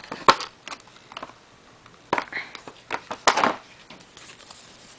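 Handling noises from toy cards and plastic packaging being picked up and shuffled: a few short rustles and clicks. One comes about a second in, and the loudest cluster comes between two and three and a half seconds in.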